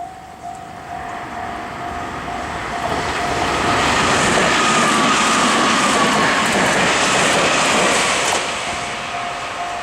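A Meitetsu electric train passing over a level crossing. Its noise builds to a peak in the middle and fades toward the end, with a whine that falls in pitch as it goes by. The crossing's warning bell rings at a steady beat before and after the train and is drowned out while it passes.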